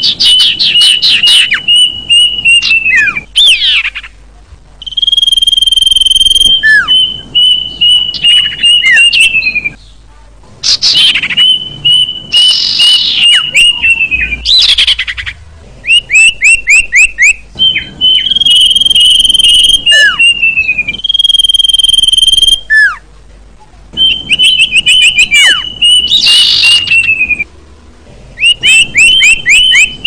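Bird song of sirpu (common iora) and kedasi birds, phrase after phrase. Each phrase is a quick run of short falling notes that leads into a long, steady, high whistle of one to three seconds, slurring down at the end, with brief pauses between phrases.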